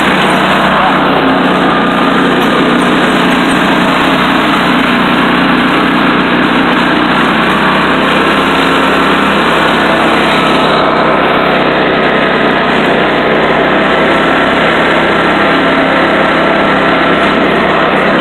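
Riding lawn mower engine running steadily at an unchanging speed, heard from the driver's seat.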